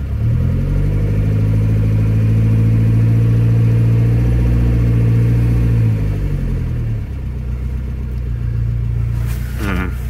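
Freshly rebuilt 1987 Saab 900 SPG turbo four-cylinder engine revved up from idle, held at raised revs for about six seconds, then allowed to fall back to idle. The engine is on its first runs after the rebuild and is being checked for oil pressure at higher rpm.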